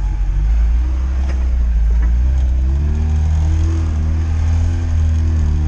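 Lada Niva engine running steadily under load while driving off-road, its pitch rising a little about halfway through as it picks up revs, then holding.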